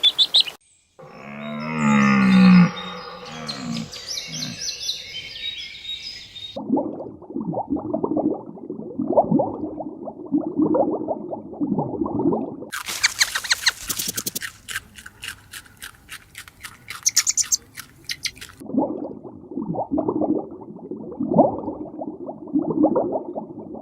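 A run of different animal sounds, one after another: a short, loud, low sweeping call, then high chirping, then a long stretch of low repeated calls, then several seconds of rapid clicking, then the low calls again.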